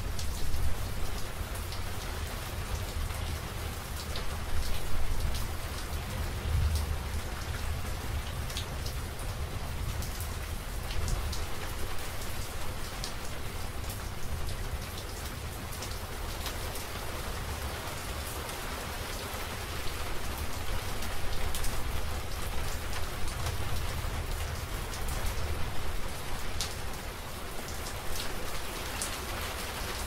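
Steady heavy rain, with single drops ticking sharply through it. Underneath runs a low rumble of distant thunder that swells a few times.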